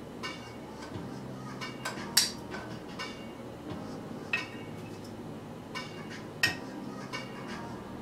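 Metal utensil clinking against a ceramic dinner plate as grilled okra is laid on it: several sharp clinks with a brief ring, the loudest about two seconds in, then again near the middle and about six and a half seconds in.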